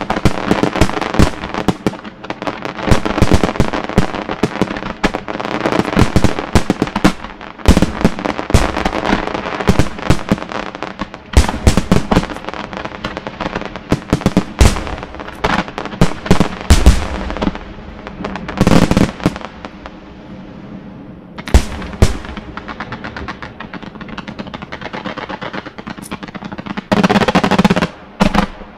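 Fireworks display with aerial shells bursting in a rapid, dense barrage of bangs. Later the bangs come further apart, with a short spell of dense crackling and bangs near the end.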